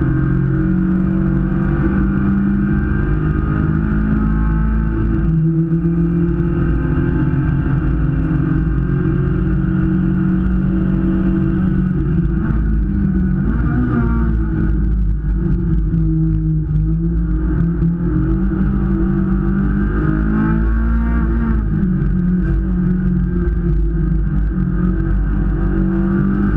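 Hyundai Veloster race car's 1.6-litre four-cylinder engine heard from inside the cabin, running hard under race load. Its pitch drops and climbs again several times with the gear changes and braking through corners, over a steady rumble of road and wind noise.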